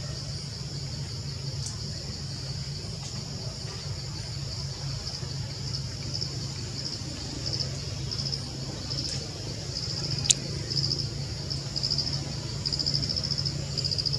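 High-pitched insect chorus, chirping in regular pulses about twice a second, more distinct and louder in the second half, over a low steady hum. A single sharp click about ten seconds in.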